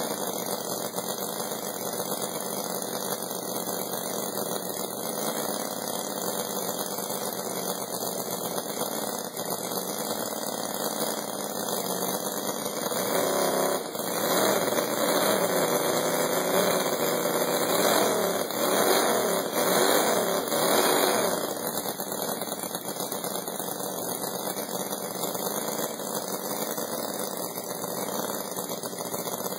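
Home-built 44 cc four-stroke model V8 engine, water-cooled, running steadily. About 14 seconds in, it is revved up by hand at the throttle for several seconds, then drops back to its steady running near 21 seconds.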